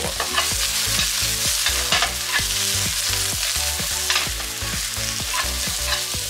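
Vegetables stir-frying in lard in a hot frying pan: a steady sizzling hiss, with the scrape and clatter of stirring every second or so.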